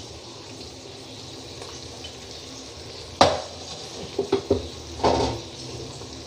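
Aluminium pressure cooker lid being taken off the pot: a sharp metal clank about three seconds in, followed by a few lighter knocks and a short scrape of metal on metal.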